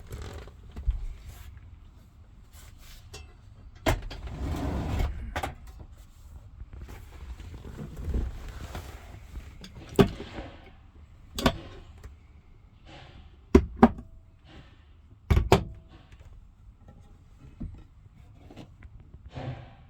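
Irregular knocks and clicks of hands-on work on a van, with a short rushing noise about four seconds in and a close pair of sharp knocks later on.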